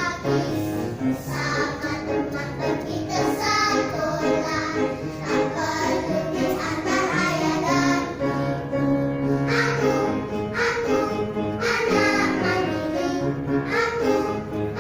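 Young children's choir singing a song together with instrumental accompaniment.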